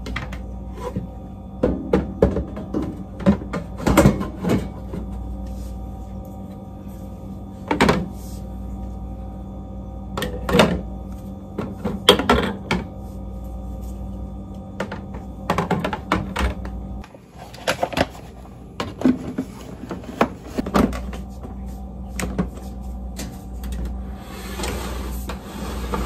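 Plastic food-storage bins and containers being handled and set into a freezer: a string of irregular clunks, knocks and rattles over a steady hum.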